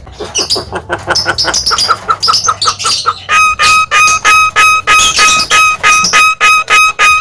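Jalak kebo (Javan myna) calling: a quick run of chattering notes for about three seconds, then a steady series of loud, clear, evenly spaced notes, about three a second.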